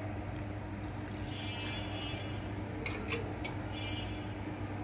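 Water poured from a plastic measuring cup into a glass bowl of flour and sugar, over a steady low hum, with a few light clicks about three seconds in.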